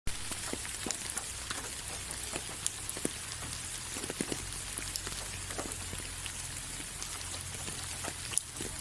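Rain falling: a steady hiss with many separate drops ticking and plopping on surfaces, and one sharper tap near the end.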